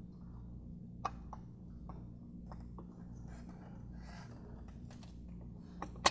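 Small scattered clicks and light taps of a VW 2.5L five-cylinder's vacuum pump being rocked by hand against the engine as its drive is keyed into place, with a sharper click near the end. A steady low hum lies underneath.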